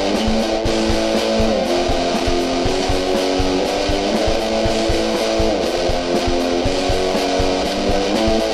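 Background music: a guitar-band song with electric guitar chords and a steady beat.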